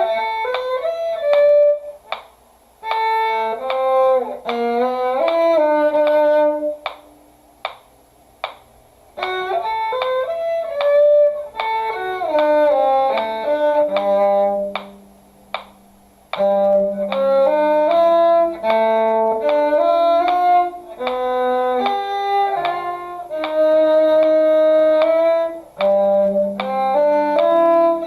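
Violin and cello playing a duet together: a lilting melody on the violin over a lower cello line, in phrases broken by short rests. Sharp clicks mark the beat in some of the rests.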